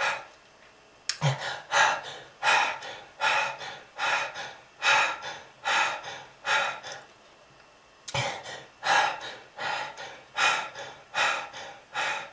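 A smoker's coughing fit: harsh, hacking, gasping breaths about one and a half a second, in two runs with a short pause about eight seconds in.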